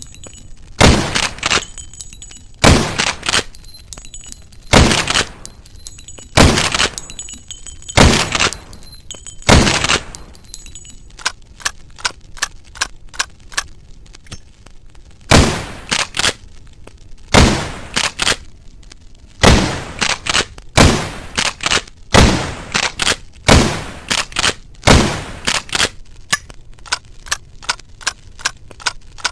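Sawed-off lever-action rifle sound effect: shots fired one after another, about one every one and a half to two seconds, each with a short echoing tail and lighter metallic clicks of the action between. About ten seconds in, the shots pause for a run of small quick clicks like rounds being loaded, then the firing resumes.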